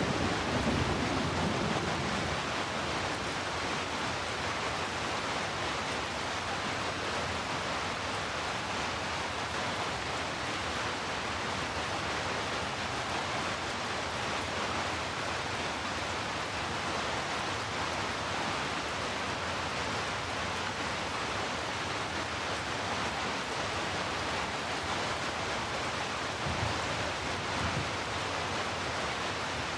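Heavy rain falling as a steady, even hiss. A low thunder rumble dies away in the first two seconds, and a brief low rumble swells up near the end.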